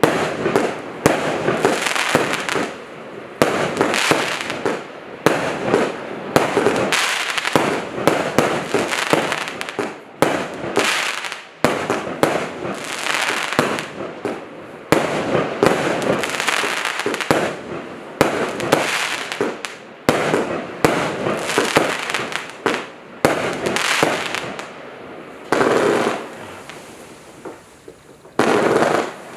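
Multi-shot consumer fireworks cake (0.8- and 1-inch tubes) firing shot after shot, about one or two a second, each a sharp bang trailing off into noise. Near the end there is a short lull before a few more shots.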